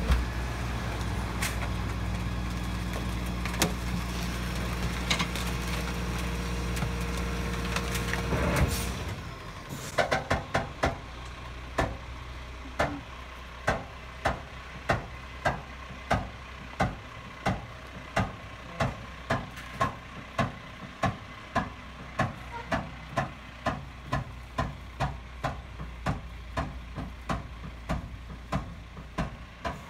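Rear-loading garbage truck's diesel engine running steadily close by for about nine seconds, then cutting away to a quieter distant background. From there on, sharp regular taps come about three every two seconds.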